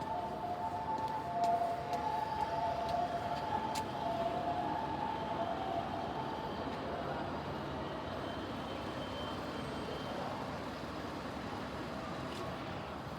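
Two-tone emergency-vehicle siren over road traffic noise, fading away over the first several seconds as the vehicle moves off.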